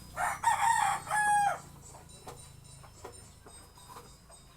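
A rooster crowing once, a loud call of about a second and a half in two parts, followed by a few faint clicks.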